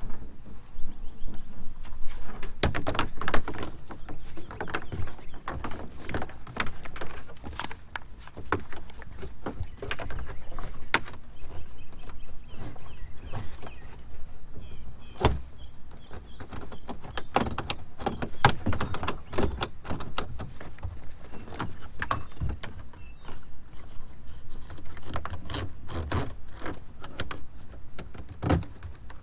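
Irregular knocks, clicks and rattles of plastic outfitting parts being handled and adjusted inside a whitewater kayak's plastic hull.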